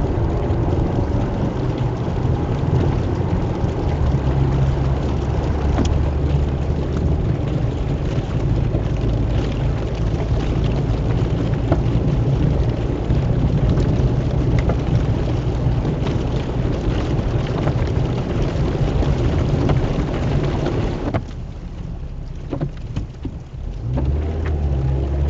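Heavy rain falling on a vehicle with its engine running underneath as a steady low hum. The rain noise and hum drop away for a few seconds near the end, then return.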